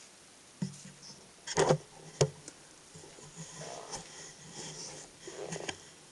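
Handling sounds close to the microphone: a few sharp knocks and clicks, the loudest two about a second and a half and two seconds in, then softer scraping and rustling.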